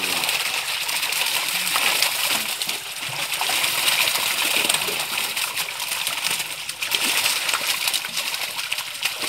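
Water splashing and spattering as a net full of live fish thrash in shallow water. It is a continuous crackle of small splashes with no pause.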